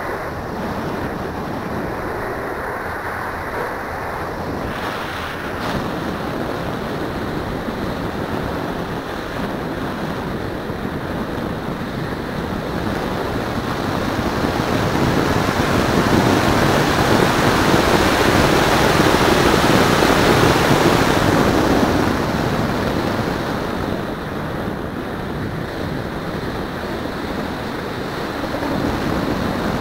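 Wind rushing over the microphone of a keychain camera mounted on an RC plane in flight: a steady roar of air that swells louder about halfway through, then eases back.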